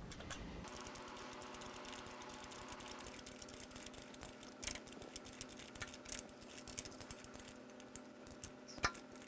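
Faint, scattered metal clicks and taps of wrenches on the nut of a cam bearing puller as it is snugged down, over a steady low hum.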